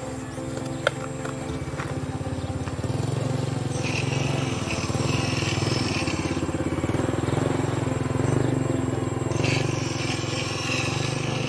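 Hydraulic pump of a radio-controlled Cat 336 model excavator running with a steady drone while the boom and bucket work. A higher hiss joins twice, about four seconds in and again near the end, and there is one sharp click about a second in.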